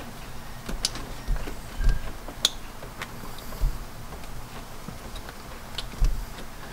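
Handling noise from a hand working blind behind an engine to fit a wiring connector onto the coolant temperature sensor. There are scattered light clicks and ticks, with several dull low knocks as the arm and connector bump against parts in the engine bay.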